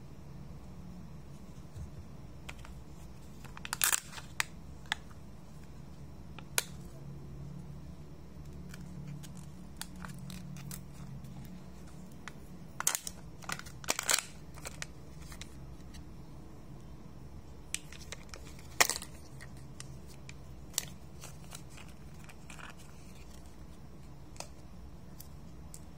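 Kinder Joy plastic packaging handled and torn open by hand: crinkling and tearing of the thin toy wrapper with scattered sharp clicks and snaps of the plastic shell and toy parts, the loudest about two-thirds through. A steady low hum runs underneath.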